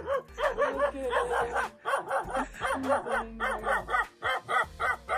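Puppy barking and yipping in a fast, continuous run of short calls, about five a second.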